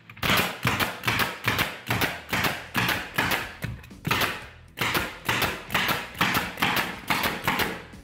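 Banks pneumatic stapler firing staples into plywood underlayment in quick succession, about three shots a second, with a short break about four seconds in.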